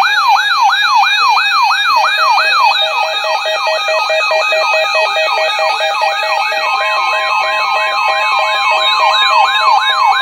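Several electronic sirens sounding together, loud and steady, each sweeping rapidly up and down in pitch at its own rate, about three sweeps a second for the main one. They are layered with pulsing beeps that start about two seconds in and a steady tone that joins later.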